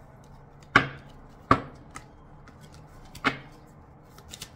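Tarot cards handled on a table: three sharp knocks, two of them close together about a second in and one more about two seconds later. Near the end a quick run of card-shuffling clicks begins.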